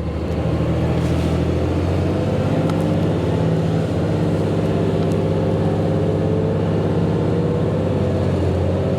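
Ford F-750 dump truck's engine running under the load of dirt as it pulls onto the highway, heard from inside the cab: a steady drone with a faint tone that slowly rises as the truck gathers speed.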